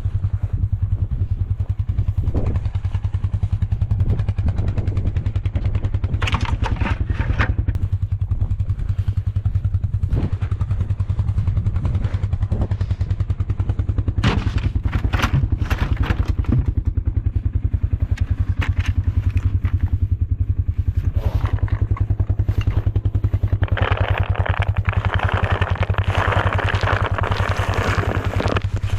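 A vehicle engine running steadily at idle, with scattered knocks and clatters over it and a louder hiss over the last few seconds.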